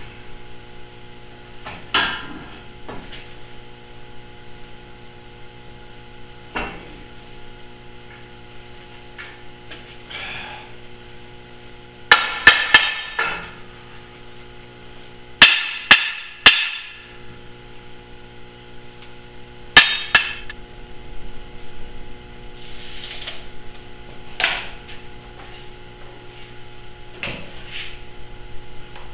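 A hammer strikes a steel frame channel that is clamped to a steel welding table, knocking it into place for welding. The blows are a mix of single strikes and quick runs of two or three, with a metallic ring after each, over a steady hum.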